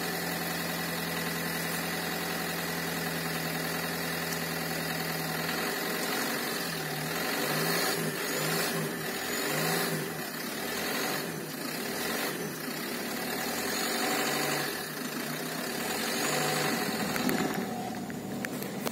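Car engine idling. Its steady hum turns uneven about six seconds in.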